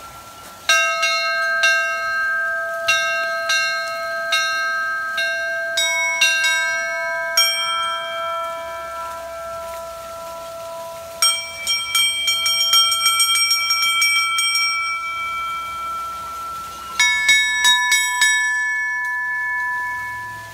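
Several hanging bronze bells rung by pulling their clapper ropes. They are struck again and again at a few different pitches, each strike ringing on long after it. Two quick runs of strikes come about 11 and 17 seconds in.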